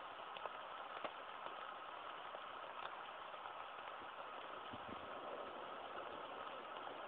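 Steady background hiss and hum with a few faint clicks, one about a second in and another near three seconds.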